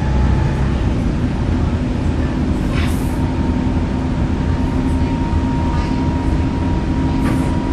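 Volvo B7TL double-decker bus's diesel engine running steadily, with a steady turbo whistle that comes in after about two and a half seconds. A brief sharp hiss about three seconds in.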